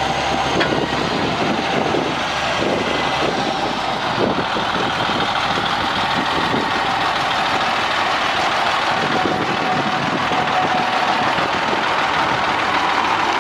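International medium-duty truck engine idling steadily.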